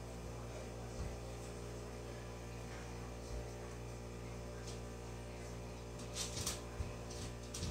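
Steady low electrical hum of a quiet room, with a couple of faint soft knocks and a brief rustle about six seconds in.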